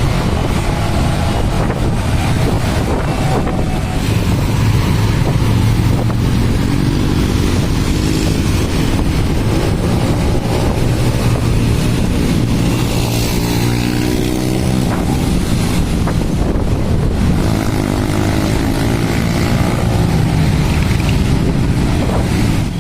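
Vehicle engine running on the road with heavy wind noise on the microphone; the engine's pitch rises twice, as when accelerating.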